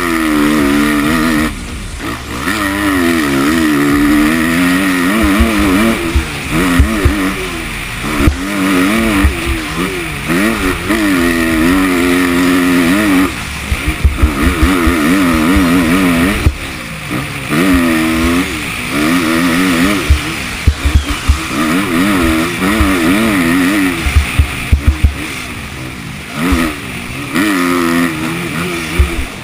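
Kawasaki KX250F four-stroke single-cylinder motocross engine revving hard, its pitch rising and falling over and over as the throttle is rolled on and chopped, with brief drops where it shuts off. Low thumps of wind on the helmet-mounted microphone run underneath.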